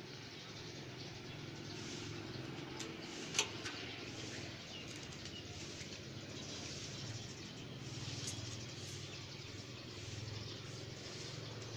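Quiet outdoor background hiss over a low hum, with one sharp click about three and a half seconds in and a few fainter ticks.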